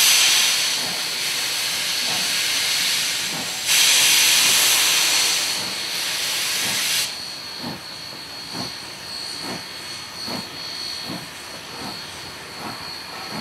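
A NSW 35 class 4-6-0 steam locomotive moving off with its train. Steam hisses loudly from the open cylinder drain cocks in two blasts, the second cutting off sharply about seven seconds in. After that there is a softer, regular beat about once a second as the train rolls past.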